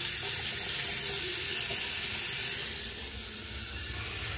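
Bathroom sink faucet running hot water in a steady stream into the basin, a hand held in the flow. The water is flowing again through the newly replaced branch valve. The rush eases slightly toward the end.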